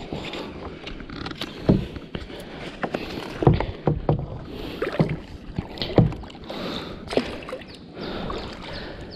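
A kayak being paddled: the paddle blade splashes in the water at irregular strokes, with scattered knocks and taps.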